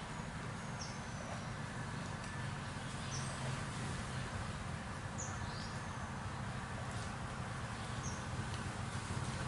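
Short, high chirps, each a quick downward sweep, come every second or two over a steady low hum, like small birds calling against machinery or room noise.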